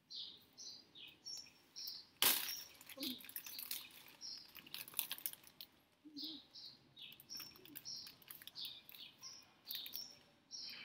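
Small birds chirping in quick, short, high calls, over crisp crunches of Cheetos being chewed, with one loud sharp crackle about two seconds in.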